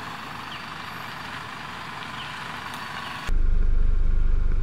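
Four-wheel-drive vehicle engine running off-road: a steady, noisy hum that switches abruptly about three seconds in to a louder, low, pulsing rumble.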